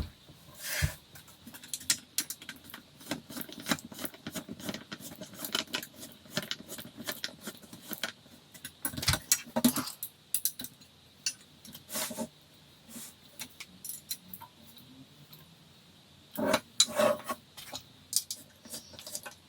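Irregular clicks, knocks and small metallic clinks of flat-pack furniture assembly: screws and metal hardware being handled, with a few louder knocks of parts being fitted.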